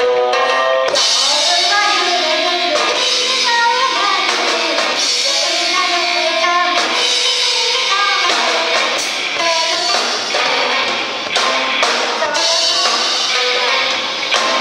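Live band playing: drum kit and electric guitars with a singer's voice over them. The drums and cymbals come in fully about a second in.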